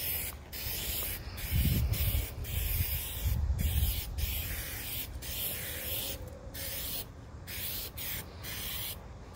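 Aerosol spray paint can hissing in about a dozen short bursts with brief pauses between them, laying a second coat of paint over sanded metal. Two low rumbles come in the first few seconds.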